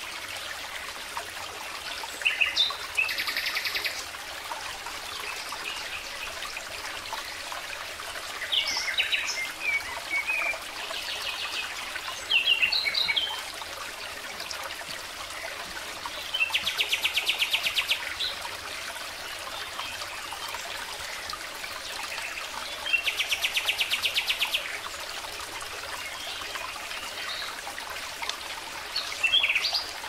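Small songbirds chirping, with several fast trills of evenly repeated notes, each about a second and a half long, over a steady background hiss.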